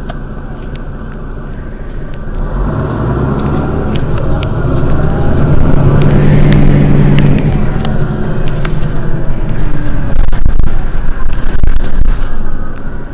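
A road vehicle passing close by, growing louder over a few seconds to a peak about six to seven seconds in, then easing. A Mercedes-Benz Citaro city bus's engine idles steadily underneath, with a second loud, uneven swell near the end.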